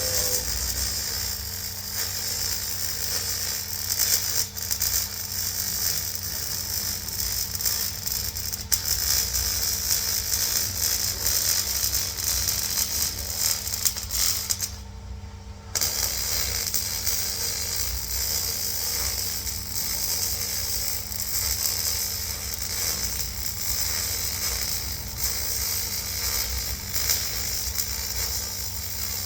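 Steady crackling hiss of an electric welding arc laying a bead on the bucket. It stops for about a second midway, then strikes up again.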